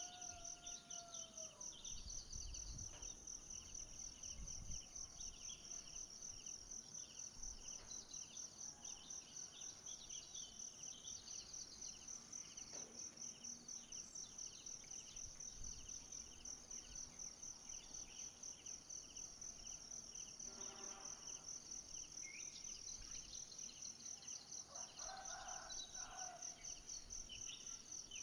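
Insects trilling in a steady, fast-pulsing high-pitched chorus, with a few faint calls from birds or other animals over it.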